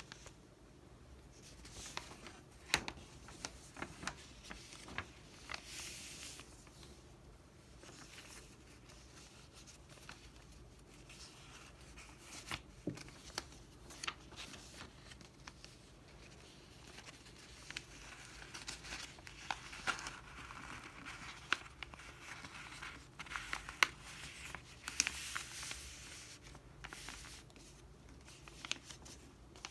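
A sheet of paper being handled and folded by hand: soft crinkling rustles and scattered sharp ticks as creases are pressed down, with the busiest rustling near the end.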